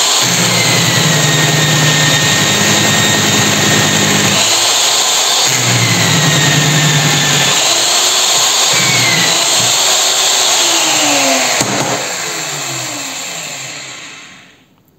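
Drill press running a 22 mm hole saw into a metal part: a steady motor hum under a high whine from the cutter that rises and falls in pitch. Near the end it is switched off with a click and spins down, its pitch falling away to quiet.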